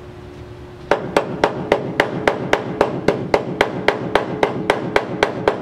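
MIG welder stitch-welding thin rusted sheet steel: a rapid, even run of short sharp arc pops, about four a second, starting about a second in.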